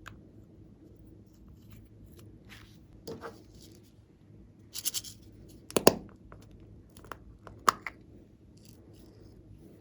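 Hands handling slime-making materials: a handful of short crinkles, scrapes and clicks, the loudest about six seconds in and a sharp click near eight seconds.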